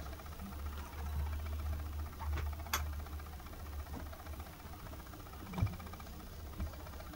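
Quiet indoor low hum with a few faint sharp clicks and a soft thump about five and a half seconds in, from a toy poodle puppy moving about on a fabric sofa.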